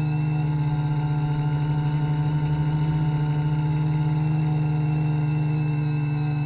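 Electric motors and propellers of a FliteTest ElectroHub multirotor drone running in flight, heard close from the camera on board as a steady drone with a slight pulsing beat.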